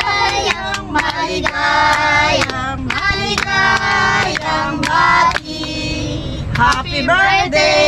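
Music: a song with a sung vocal line over a beat.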